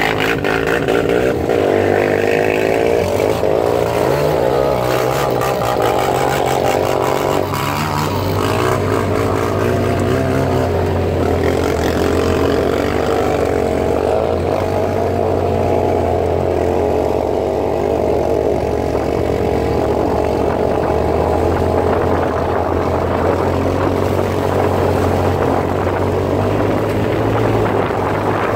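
The off-road vehicle's engine runs steadily at cruising speed on a muddy dirt road, a constant drone with a low hum. A patter of light ticks sounds over it during the first several seconds.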